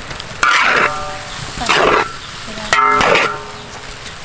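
Metal spatula scraping and tossing fried rice in a large wok over a faint sizzle, a stroke about every second, the wok ringing briefly with each scrape.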